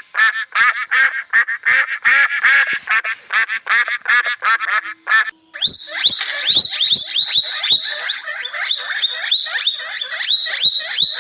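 Birds calling in rapid repeated notes, about five a second, in two runs split by a short gap about five seconds in; the second run is higher-pitched.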